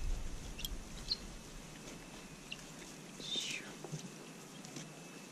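Quiet stretch with faint scattered clicks of saddle tack as a saddle is fitted on a horse, and a single faint falling whistle about three seconds in.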